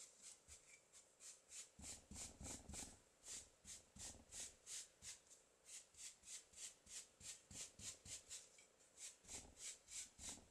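A sponge dauber dabbing paint onto canvas drop cloth in quick, soft taps, about four a second, with a few low knocks of hands on the table.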